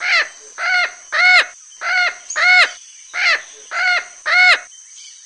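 Parrot calling: eight short squawks in a steady series, about two a second, each rising and then falling in pitch.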